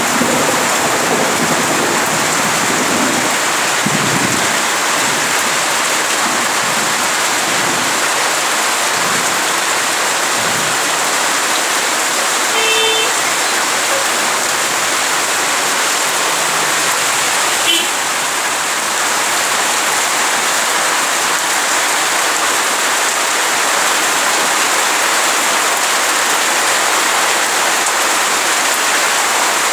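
Heavy rain falling steadily in a constant dense hiss, with a brief faint sound about halfway through.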